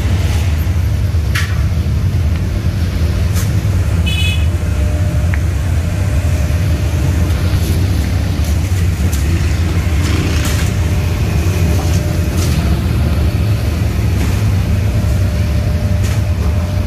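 Steady low rumble of street traffic and machinery around a roadside food stall, with a few sharp metallic clinks and knocks now and then.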